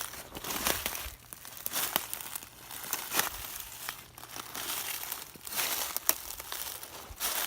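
Footsteps crunching through dry fallen leaves on a woodland floor, each step a crackling, crinkling burst, at a steady walking pace of roughly one step a second.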